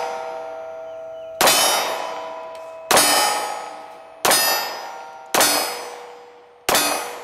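Glock 43 9mm subcompact pistol fired five times at a slow, steady pace, about one shot every second and a half, each shot followed by the ringing of the steel torso target as it is hit.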